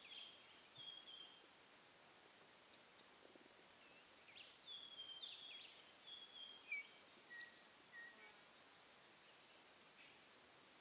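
Faint bush ambience: a bird calling in short high whistled notes, several falling in pitch, over a steady rapid high-pitched insect buzz.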